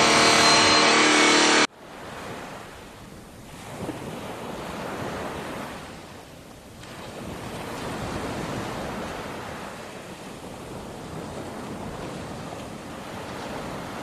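A loud car engine running for under two seconds, cut off abruptly. Then sea surf washing on a beach, swelling and fading in slow waves.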